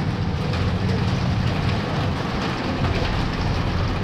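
Steady rain falling, with a low, even rumble underneath.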